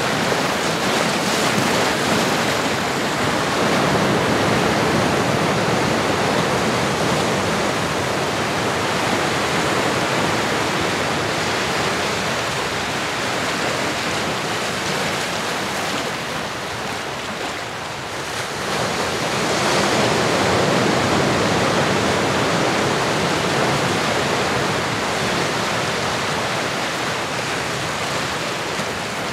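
Recorded ocean waves: a continuous wash of surf that ebbs a little past halfway and swells back up just after.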